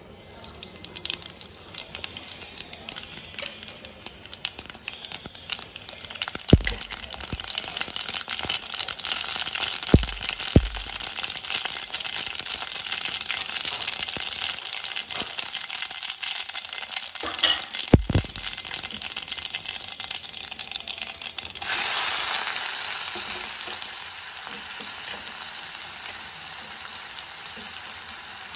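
Mustard seeds crackling and sizzling in hot oil in a stainless steel kadai, with a few sharp knocks against the pan. About 22 s in, chopped onions go into the oil and a sudden, louder, even sizzle takes over, then eases off.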